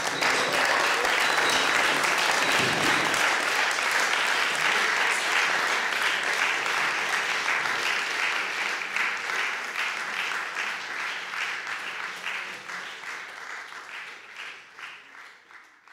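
Audience applauding: dense, steady clapping that gradually thins out into scattered individual claps and dies away near the end.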